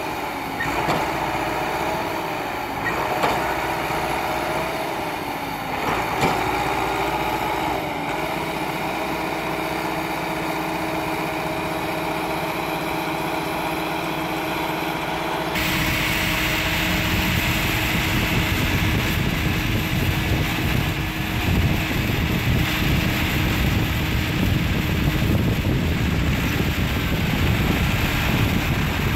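Massey Ferguson 385 tractor's four-cylinder diesel engine running under load as it pulls a loaded soil trolley through deep sand, its pitch rising and falling in the first half. About halfway through the sound turns suddenly louder and rougher.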